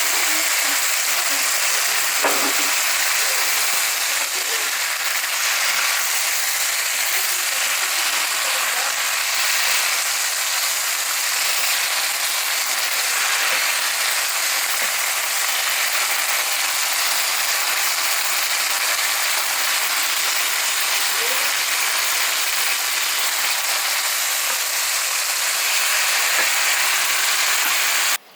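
Food sizzling steadily in a hot pan during stir-frying, a loud even hiss that cuts off suddenly near the end.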